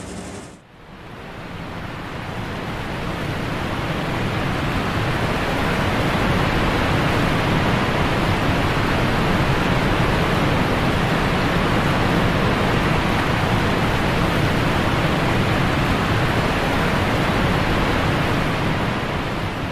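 Steady rushing-water noise of a waterfall, rising in over the first few seconds and easing off near the end.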